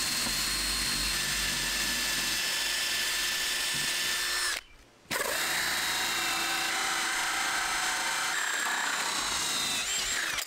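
Cordless drill running steadily, boring a pilot hole with a twist bit into a solid core door. After a brief break it runs again, spinning a hole saw that cuts a vent hole through the door, its pitch dropping a few times as the saw bites.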